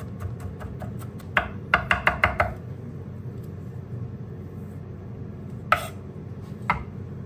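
Kitchen food preparation: a quick run of about six sharp knocks, then two single knocks a second apart, over a steady low hum.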